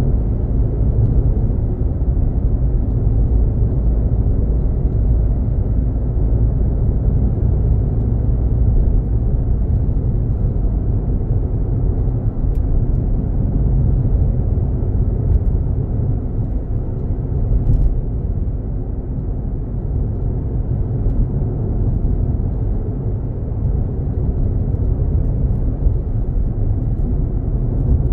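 Steady low rumble of a car driving along a paved road: tyre and engine noise from the moving car.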